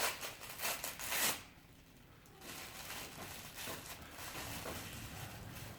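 Packaging being handled and unwrapped: a few short rustles and crinkles in the first second and a half, then fainter scattered handling sounds.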